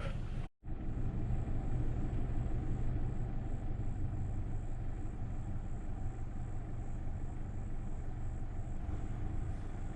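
Toyota Tacoma pickup driving on a dirt swamp trail: a steady low vehicle rumble. The sound briefly cuts out about half a second in.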